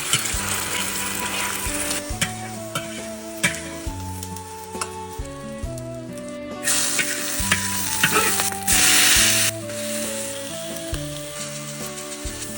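Tomato and egg stir-fry sizzling in hot oil in a pan, with the clicks of a spatula stirring. The sizzle surges louder twice, about seven and nine seconds in. Background music plays underneath.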